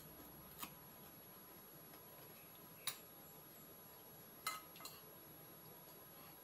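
Four light clinks of a metal spoon and fork against a plate while food is scooped up. The loudest clinks come about three and four and a half seconds in, with near silence between them.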